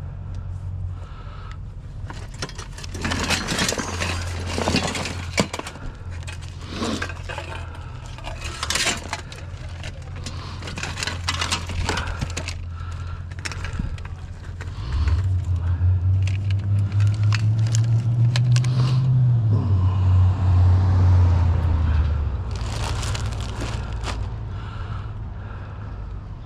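Rummaging through a pile of curbside junk: plastic trash bags rustling, with clicks, knocks and scrapes of cables and plastic items being moved. A low engine hum runs underneath. Past the middle, a louder vehicle drone swells for several seconds, rising a little in pitch, then fades.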